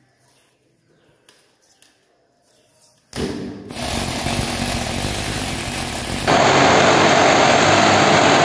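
Corded electric drill boring into a concrete ceiling, starting up about 3 seconds in and running steadily, then growing louder about 6 seconds in. The holes are for expansion bolts that will hang the ceiling's support channels.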